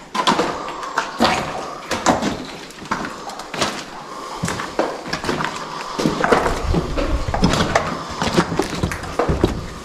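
Footsteps on a hard floor in an empty building, irregular knocks and scuffs, with a low rumble setting in about six seconds in.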